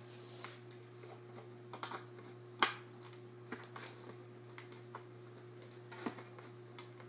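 Scattered light clicks and taps of a screwdriver and hands on plastic packaging, freeing an RC car's steering-wheel remote from its box tray. The sharpest click comes about two and a half seconds in, over a steady low hum.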